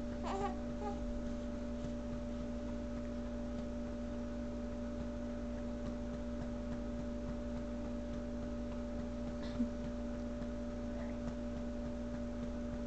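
Steady electrical hum with a quiet room background, a brief faint squeak from the newborn near the start, and a single short knock about ten seconds in.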